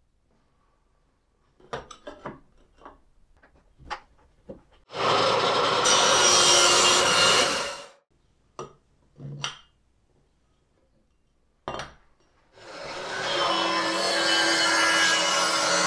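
Angle grinder with a cut-off disc, mounted on a sliding miter stand, cutting a metal tube. First a run of knocks and clicks as the tube is set and clamped. Then a loud grinding run of about three seconds that stops sharply, more knocks, and near the end the grinder builds up and cuts steadily.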